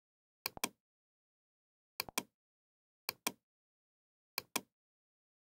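Computer mouse button clicking, each click a quick press-and-release pair, four times at uneven gaps of one to one and a half seconds, with dead silence between.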